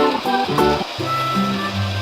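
Background music: plucked, guitar-like chords giving way about a second in to held bass notes with a light melody above.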